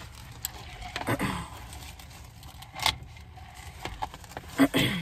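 A fountain-drink cup being handled and sipped through a straw, with scattered clicks, knocks and rattles from the cup.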